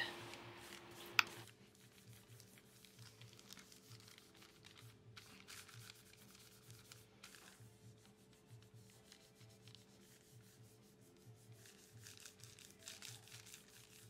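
Faint soft rubbing of a hand and fingertips over wax paper, pressed onto a paint-covered gel plate to take a print from the leaves beneath. There is one sharp click about a second in.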